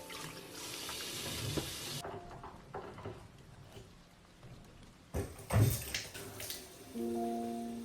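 Water running briefly from a kitchen tap, shut off about two seconds in, followed by light clinks and a louder clatter of dishes, with soft piano music coming in near the end.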